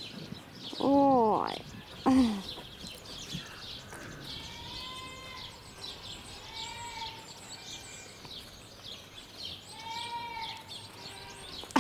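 Lion cubs giving short, high-pitched mewing calls that rise and fall, one every second or two, with faint high chirps above them.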